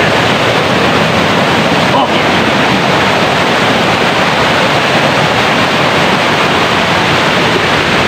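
Steady, loud rush of a swollen forest stream running white over rocks, high after days of monsoon rain.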